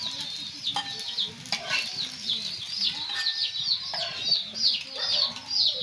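Birds chirping rapidly: a steady stream of short, high, falling chirps, several a second, with a few sharp clicks among them.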